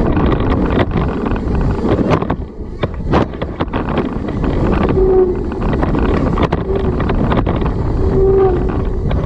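Wind buffeting the microphone of a camera on a moving mountain bike, over the rush of tyres on a dirt trail, with frequent short rattles and knocks from the bike over rough ground.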